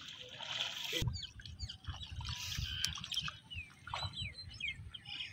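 Small birds chirping repeatedly in short rising and falling calls, over a low irregular rumble of wind on the microphone.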